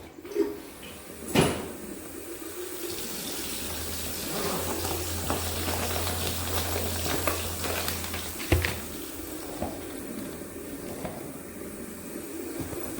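Water running steadily, with a few sharp knocks and a low hum partway through.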